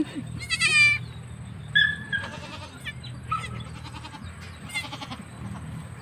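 Newborn goat kid bleating: one high, wavering bleat about half a second in, then a shorter, thinner call about two seconds in.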